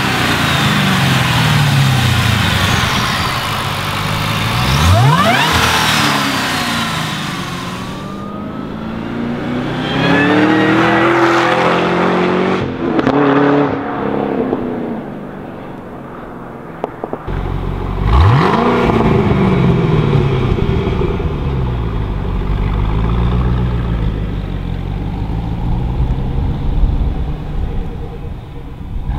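Supercharged 6.2-litre V8 of a Cadillac CTS-V with Corsa X-pipe and Corsa mufflers. It is first revved in sharp blips, then accelerates along the road, then gives a quick rev and runs at low revs as the car turns around.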